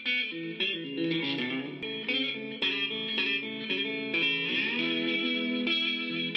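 Background music: an electric guitar playing a melody of plucked notes, with a note sliding in pitch about four seconds in.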